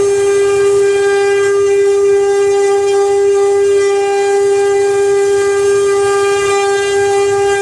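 CNC wood-carving router running, its spindle giving a steady, unchanging high whine with overtones.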